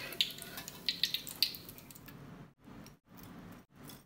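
Hot oil crackling in a wok, with sharp clicks, as a wire skimmer lifts deep-fried egg fritters out. The crackling stops after about a second and a half, leaving only a faint hum that cuts in and out.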